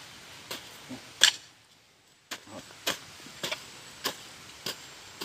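Regular strikes of a garden hand tool chopping into soft, rain-soaked soil to loosen a vegetable bed, a little under two strokes a second, with a short break about one and a half seconds in.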